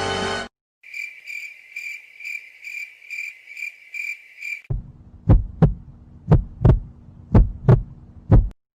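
Two stock sound effects in turn: a cricket-chirping loop, a high chirp repeating about three times a second, the "awkward silence" gag; then a heartbeat effect, low lub-dub double thumps about once a second that grow louder.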